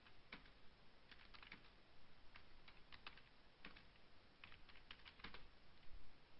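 Faint typing on a computer keyboard: irregular, quick key clicks, some in short runs.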